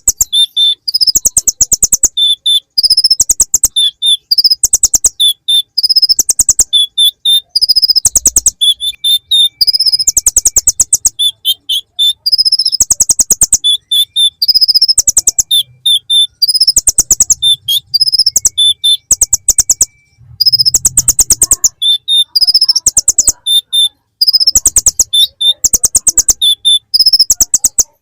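Kolibri ninja (konin), a sunbird, singing a fast, insect-like trilling song full of mimicked bar-winged prinia (ciblek) phrases. It comes in rapid buzzy bursts one after another, with short gaps between them.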